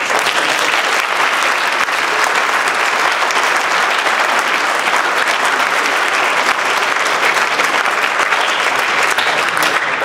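Audience applauding: many hands clapping in a dense, even patter that breaks out suddenly and stops near the end.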